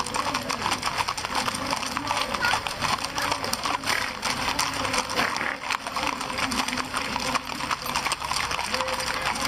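Horses' hooves clopping on a hard street, many rapid overlapping hoofbeats, with people's voices talking underneath.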